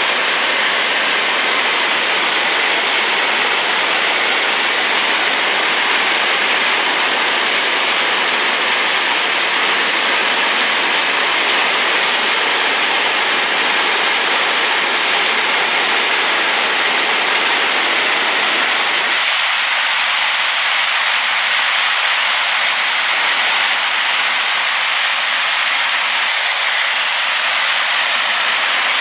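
Waterfall in rain-swollen flow, a loud, steady rushing of falling water. About two-thirds of the way through, the deeper part of the rumble drops away.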